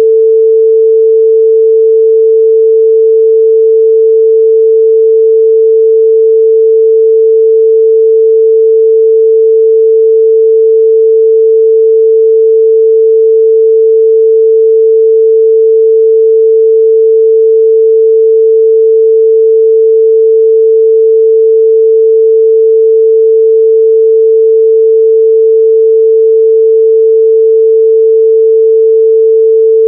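A steady, loud 445 Hz pure sine-wave test tone, one unchanging pitch with nothing else.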